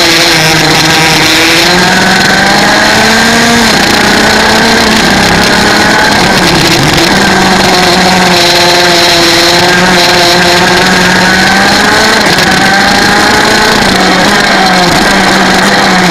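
125 cc two-stroke kart engine running hard at speed on the track, its pitch climbing and dropping several times as the throttle opens and closes through the corners.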